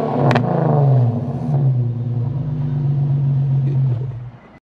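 2012 Infiniti G37's 3.7-litre V6 with freshly fitted Stillen Gen 3 cold air intakes, its revs falling back from a blip into a steady idle, with one sharp click about a third of a second in. The sound fades out near the end.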